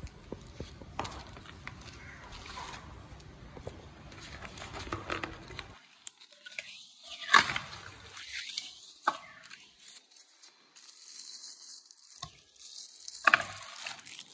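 Cardboard packaging being handled: rustling, sliding and scraping of the box insert and leaflet, with a few sharp knocks, the loudest about halfway through and near the end, where the plastic-wrapped scale is touched.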